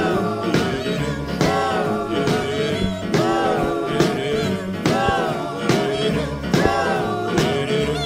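Background music: an upbeat rock-and-roll song with a steady beat.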